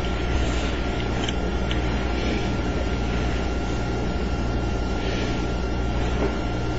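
Steady low hum with hiss, an unbroken background drone, with a couple of faint light ticks about a second and a half in.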